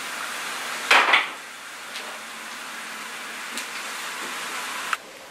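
Food frying in a pan, a steady sizzle, with a sharp double clatter of a utensil or dish about a second in and a few light clicks after. The sizzle cuts off suddenly near the end.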